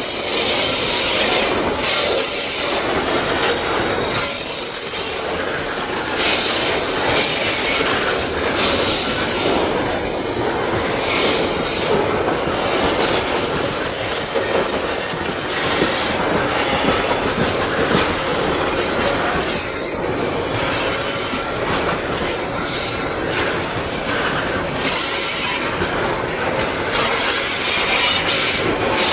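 Loaded wagons of a Babaranjang coal train rolling slowly past, a steady rumble and rattle of wheels on rail with brief high-pitched wheel squeals now and then.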